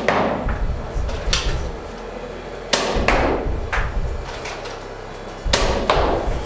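Nerf foam-dart blaster being fired repeatedly: a string of sharp clacks and knocks, about eight in all, several in close pairs a few tenths of a second apart.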